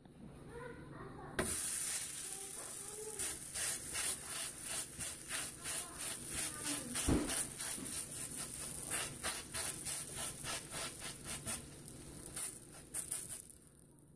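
A masa pupusa sizzling on an oiled Presto griddle. The sizzle starts suddenly about a second and a half in, as the pupusa goes down, and goes on as a steady hiss with rapid crackling pops before fading near the end.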